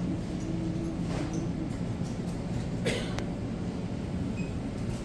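A steady low mechanical hum and rumble, with a couple of short clicks about one and three seconds in.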